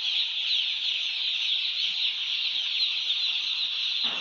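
A large flock of chicks peeping all at once: a dense, continuous chorus of high, short, falling cheeps.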